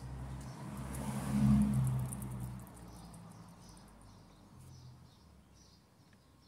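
A passing vehicle swells up for about two seconds and fades away, over small birds chirping repeatedly.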